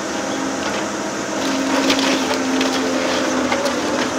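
Volvo EC750E HR high-reach demolition excavator running steadily under load while its sorting grab tears into a wooden roof structure, the timbers cracking and splintering with a cluster of sharp snaps in the middle and another near the end.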